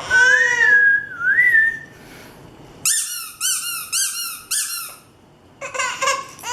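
A small child crying, then a run of about five high, evenly repeated squeaks in the middle, and the crying starting again near the end.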